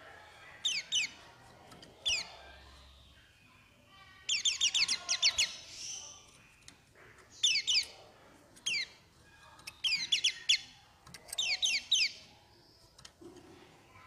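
White-eye (pleci) calling in short bursts of quick, sharp falling notes, several in a row, repeated every second or two. The longest run comes about four seconds in.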